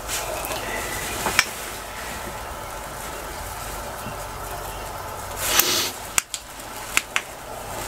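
Old, brittle newspaper being handled on a floor: a rustle of paper about five and a half seconds in and a few sharp clicks and taps, over a steady low hum.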